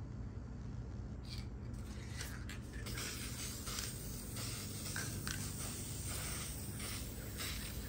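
Aerosol spray can of lacquer hissing in short bursts, two brief ones early and then a string of them from about three seconds in, as it coats small brass corner brackets.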